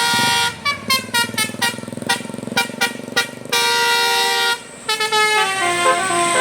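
A Basuri telolet horn on a bus, a multi-tone musical air horn, playing a tune. It plays a held note, then a quick run of short notes and a long held chord that breaks off briefly. Near the end comes a run of short notes stepping down in pitch.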